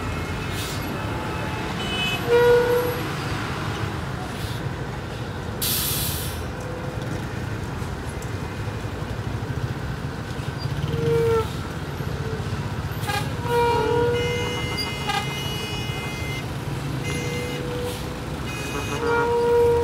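Diesel engines of buses and trucks idling in a stalled traffic jam, a steady low rumble. Short vehicle horn toots come several times, and a brief air-brake hiss comes about six seconds in.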